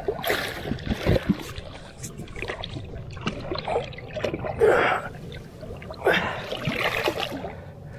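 Water splashing and sloshing against a boat's hull as a large tarpon is held and thrashes at the side of the boat, with irregular knocks.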